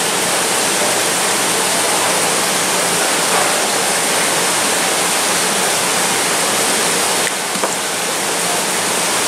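Steady rush of running water that fills the background, with a couple of faint knocks about seven and a half seconds in.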